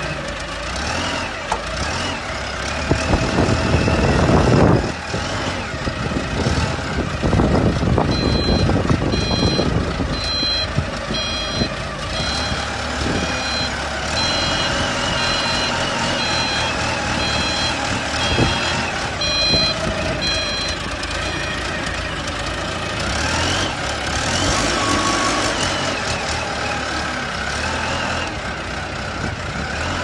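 Engine of a self-loading concrete mixer truck running as the machine manoeuvres, with two louder surges in the first ten seconds. A reversing alarm beeps steadily, about one and a half beeps a second, from about a quarter of the way in until about two-thirds through.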